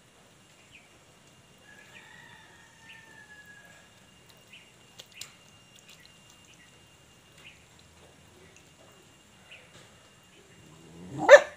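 Quiet outdoor background with faint bird calls and small scattered ticks, then a dog barks once, loud and short, near the end.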